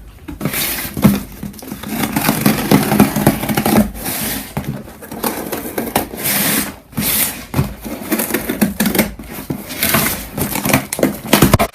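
A package being opened by hand: irregular rustling, ripping and crinkling of its wrapping, with clicks and handling knocks.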